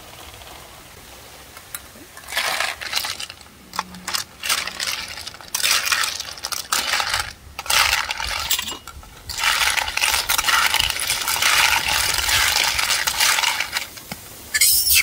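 Snail shells rattling and clinking against a metal wok as they are stirred with a metal spatula and spoon, in stretches of a second or several with short pauses, starting about two seconds in.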